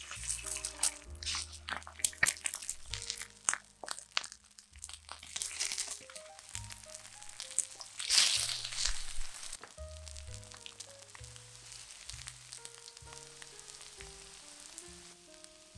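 Eggs sizzling as they fry in an oiled nonstick egg pan, with sharp clicks in the first few seconds and a louder burst of sizzle about eight seconds in as an egg is flipped with a spatula. Background music plays.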